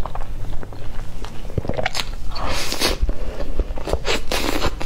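Close-miked eating sounds of a soft cream cake with fruit filling: wet chewing, lip smacks and small mouth clicks, with two louder, noisier surges about two and a half and four and a half seconds in.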